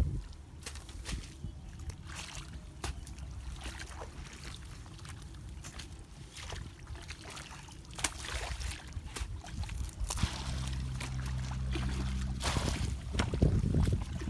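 A hoe and a wooden pole chopping and scraping into wet mud and shallow muddy water, with irregular thuds and splashes, over a steady low rumble.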